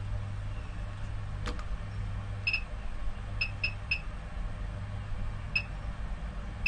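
The Sunshine P-1505TD bench power supply's 1A/5A selector switch snaps over with one sharp click, then its voltage knob is turned in steps, giving a few short, high, pitched ticks at uneven intervals. A steady low hum runs underneath.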